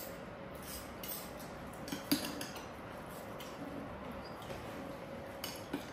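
Metal forks and spoons clinking and scraping against ceramic bowls of noodles while eating, in scattered short clicks, the sharpest about two seconds in.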